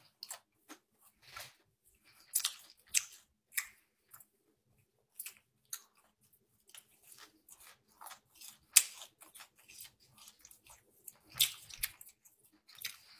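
Irregular crisp crunches and clicks close to the microphone, short and scattered with gaps between them, the loudest a little before the middle and again near the end.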